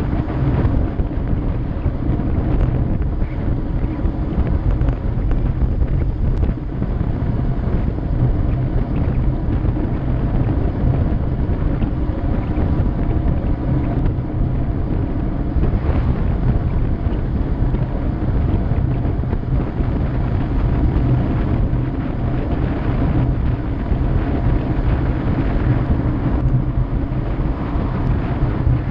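Steady, heavy wind noise on the microphone of a bike-mounted camera during a fast road-bike descent, mostly a low rumble.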